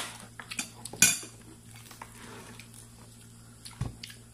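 A few sharp clinks and knocks of tableware, the loudest about a second in, then a dull thump near the end, over a faint steady low hum.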